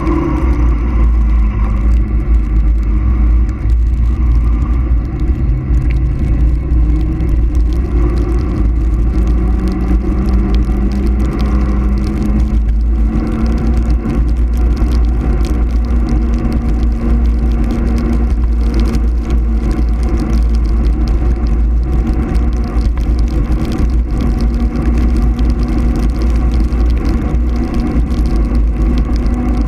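Wind rushing and buffeting over the microphone of a mountain bike descending a paved road at speed, with a steady tyre hum that slowly rises and falls in pitch.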